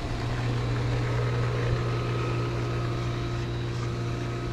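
Steady low mechanical hum of a running motor, with faint steady higher tones above it.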